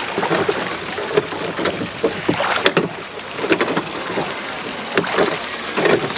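Rowboat being rowed with wooden oars: uneven strokes, each a splash of the blades in the water with knocks of the oars against the boat.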